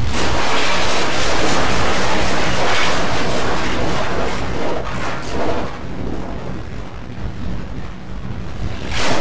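Walk-behind gasoline lawnmower engine running loud, a dense rumble over a steady low hum. It eases off from about the middle and comes back up sharply near the end.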